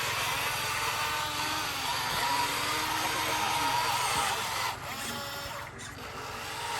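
Remote-control toy construction machines running, a steady electric whirring of their motors and gearboxes, with voices in the background. The whirring drops off for a moment about five seconds in, then picks up again.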